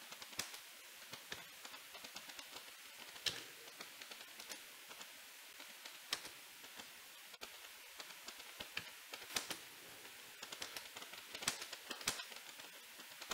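Typing on a Zebronics Zeb K35 slim membrane keyboard: faint, irregular key clicks, several a second, with a few louder keystrokes. The keys feel slightly jammy.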